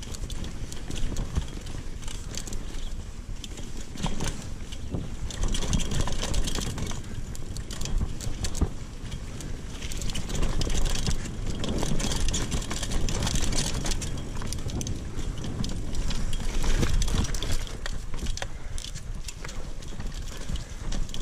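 Mountain bike riding over a dirt trail, heard through a mounted GoPro: tyre rumble with constant rattling and clicking of the bike over bumps, louder in stretches.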